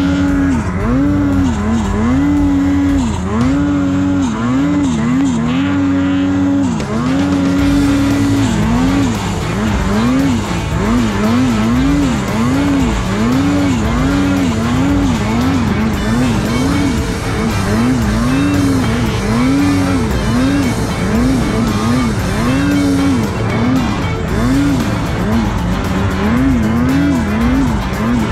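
Two-stroke snowmobile engine revving up and down over and over as the sled is ridden through deep powder. The first several seconds have longer held revs; after that the throttle cycles in quicker bursts, about one a second.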